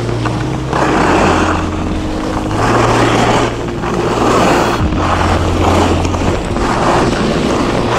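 Skis scraping over firm, icy snow in a series of turns, swelling and fading about every second or so, with wind rushing on the action-camera microphone.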